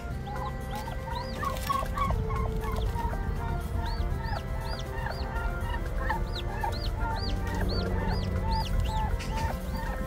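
Newly hatched turkey chicks peeping in short rising-and-falling chirps, about two a second, with a turkey hen clucking, over background music.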